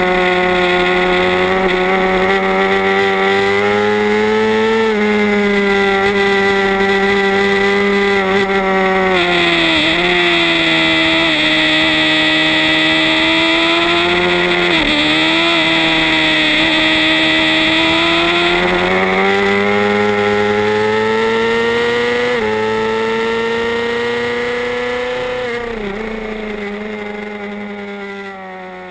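Suzuki GSX-R600 inline-four racing engine heard from onboard at high revs through a lap, its pitch dipping briefly several times and climbing again, with rushing wind noise loudest midway. The sound fades out near the end.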